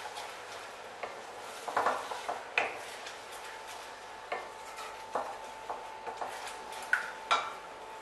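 Wooden spatula stirring thick masala and yogurt gravy in a stainless steel pan, with irregular knocks and scrapes against the pan now and then.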